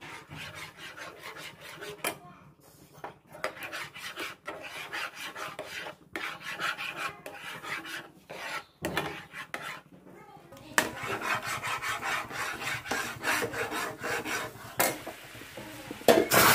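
Slotted metal spatula scraping and stirring bubbling caramelized sugar in a nonstick frying pan, in quick rasping strokes a few times a second. About eleven seconds in, a steadier sizzling hiss from the bubbling caramel joins the scraping.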